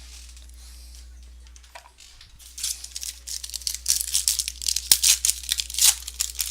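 Plastic wrapper of a trading-card pack being torn open and crinkled. A quick run of crackling starts about two and a half seconds in.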